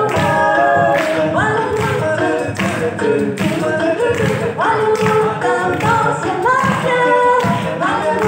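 Music with singing: voices sing a melody over a steady beat.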